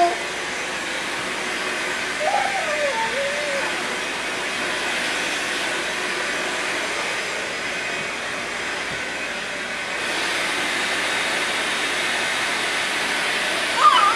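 Vacuum cleaner running with a steady hiss, getting a little louder about ten seconds in.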